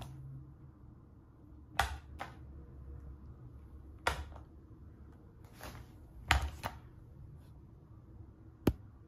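Quickle Wiper dry floor mop clacking and tapping on a wooden floor: several sharp knocks at irregular intervals, the loudest a quick double knock about six seconds in.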